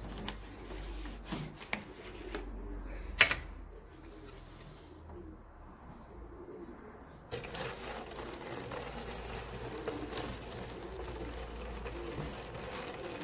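A plastic water bottle is handled with a few clicks and one sharp knock about three seconds in. From about seven seconds in comes a steady rush of still water being poured into the bottle. Pigeons coo in the background.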